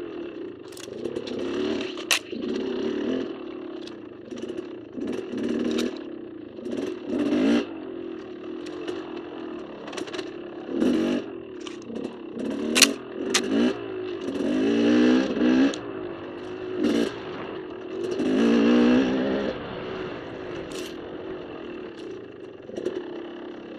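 KTM dirt bike engine on the trail, opening and closing the throttle in repeated short bursts of revs, with two longer revs in the second half. Sharp knocks and clatters come through a few times as the bike goes over rough ground.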